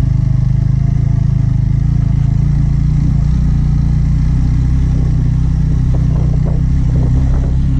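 Motorcycle engine running steadily while the bike rides slowly over a rough dirt road.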